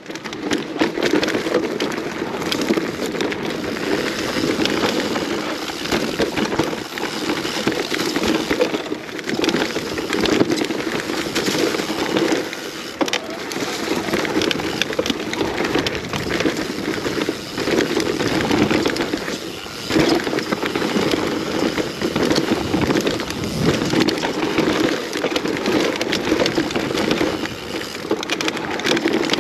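Mountain bike riding fast down a rough, rooty and stony enduro trail: a continuous crackle and rattle of tyres over dirt, stones and roots and of the jolting bike.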